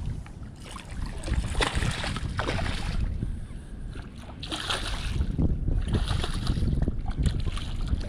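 Wind buffeting the microphone, with several bursts of splashing as a hooked striped bass thrashes at the water surface.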